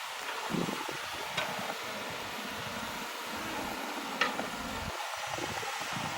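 Heavy earthmoving machinery, a bulldozer working, running as a steady rumbling hum with a couple of short sharp clanks.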